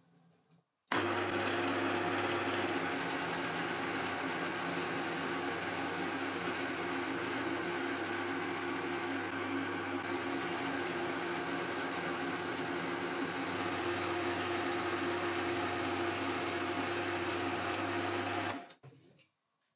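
Milling machine spindle running with a face mill cutting across a brass workpiece: a steady machine hum under a constant cutting noise. It starts suddenly about a second in and cuts off suddenly near the end.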